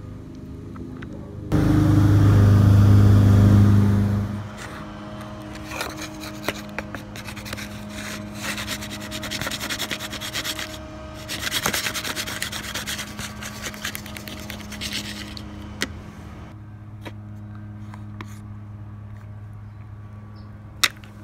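Slime being squeezed and poked by hand in a plastic tray: sticky squelching with many small crackles and pops, busiest in the middle. Near the start there is a loud rubbing noise lasting about three seconds, a steady low hum sits underneath, and one sharp click comes near the end.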